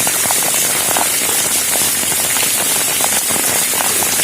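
Heavy rain falling steadily: a dense even hiss with many small scattered ticks of drops striking surfaces.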